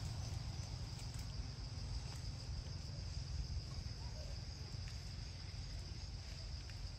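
Steady high-pitched insect drone over a continuous low rumble.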